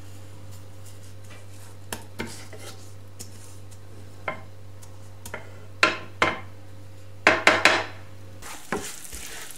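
Wooden spoon scraping and knocking against a nonstick frying pan while stirring vermicelli in oil, scattered at first with a run of louder scrapes in the second half. A steady low hum underneath cuts off just before the end.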